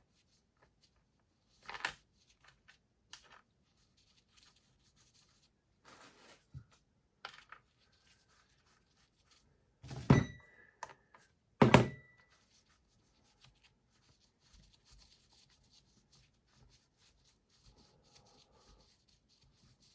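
Scattered light clicks and knocks as a Stihl MS 170 chainsaw's bar, chain and side cover are fitted back on by hand, with two louder metal clanks about ten and twelve seconds in, each ringing briefly.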